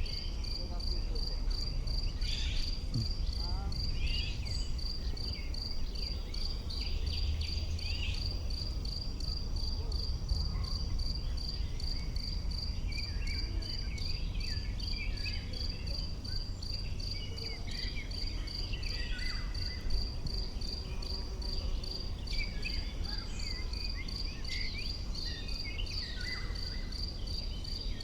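A cricket chirping steadily in an even rhythm, about two chirps a second, with scattered short calls of other small animals and a low outdoor rumble.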